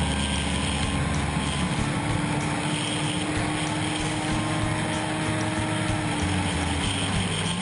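Kawasaki ZZR1400 (ZX-14R) inline-four engine pulling at high speed, heard onboard over wind rush; its pitch rises slowly and steadily, then dips briefly near the end.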